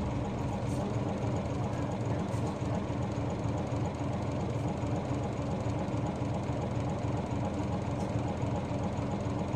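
Diesel engine of a city route bus running at a steady speed, heard from inside the bus.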